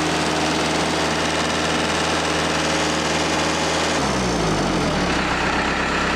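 Case 430 skid steer's four-cylinder diesel engine running at high speed, then throttled down about four seconds in, its pitch falling and settling at idle. It runs with a slight miss, which the owners put down to cylinder number 2.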